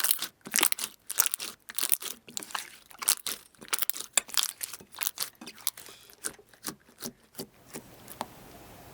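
Crisp crunching and crackling as a crunchy material is squeezed and crushed, several sharp crackles a second, thinning out near the end and giving way to a steady faint hiss.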